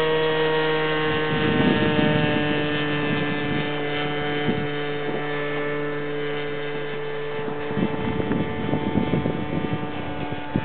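Zenoah G20ei 20cc two-stroke gas engine of a large RC Piper Cub in flight, a steady drone that holds its pitch, with patches of rougher noise about a second and a half in and again near the end.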